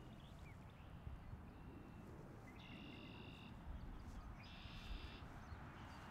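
Faint outdoor ambience with a low rumble, broken twice by a high buzzing animal call about a second long, once before and once after the middle.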